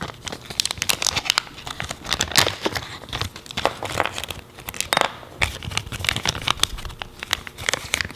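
Clear plastic parts bag from a valve repair kit crinkling as it is handled, in a dense run of irregular crackles.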